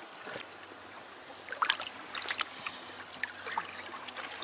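Hand and trout splashing in shallow creek water as the fish is grabbed, over the steady trickle of the stream, with a burst of sharper splashes about a second and a half in.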